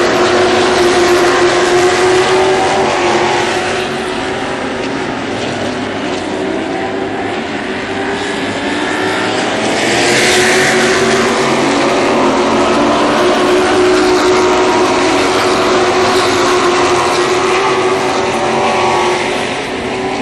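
A pack of Sportsman-class stock cars racing on a short oval, several engines running at high revs, their pitches overlapping and shifting as the cars go by. The sound swells loudest about halfway through as cars pass close.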